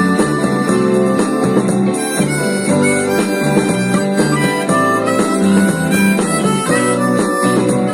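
Harmonica playing a melody of held notes that change about once a second, over acoustic guitar accompaniment.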